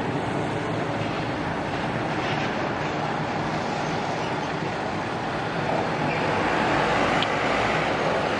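Intercity coach's diesel engine running at low speed as the bus turns slowly, over steady road traffic noise; the noise grows a little louder near the end as a motor scooter passes close by.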